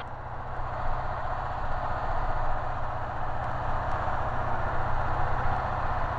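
Cabin noise of a 1959 Cessna 150 taildragger on final approach: the engine and propeller running steadily with an even rush of air.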